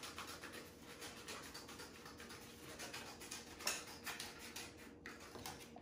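Scissors cutting through a paper plate: faint, quick repeated snips with paper scraping and rustling, a couple of slightly louder cuts a little before four seconds in.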